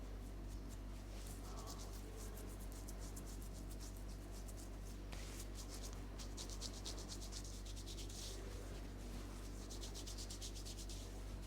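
A barber's hands rubbing and scratching through hair, close to the microphone, in quick dense strokes over a steady low electrical hum.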